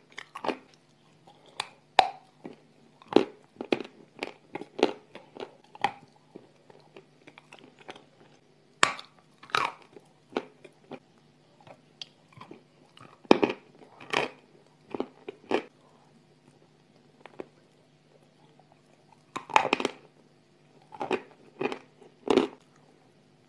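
Close-up crunching and chewing of lumps of dry gray clay: sharp, brittle bites that come in clusters of several crunches, with quieter chewing in between.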